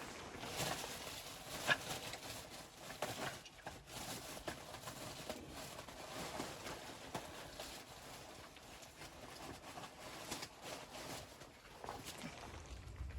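Irregular crunching and knocking of someone working in deep snow while setting up a hot tent, with one sharper knock about two seconds in.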